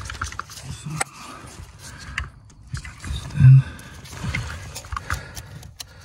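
Scattered clicks and knocks of hands working plastic and metal parts at a BMW E60's clutch pedal pivot under the dashboard. A brief low hum about halfway through is the loudest sound.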